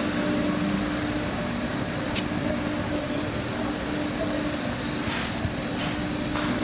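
Steady drone of machinery with an even hiss and a faint high whine. A low hum drops out about a second in, and there is a single short click about two seconds in.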